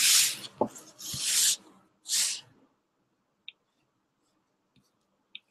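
Three short breathy puffs on the microphone, about a second apart, followed by a few faint clicks.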